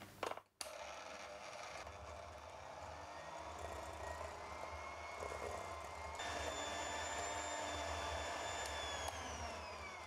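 Electric hand mixer running, its twin wire beaters whisking egg yolk and vanilla into creamed butter in a glass bowl. After a few clicks at the start, its steady whine steps up in pitch and loudness about six seconds in, then falls in pitch as the mixer winds down near the end.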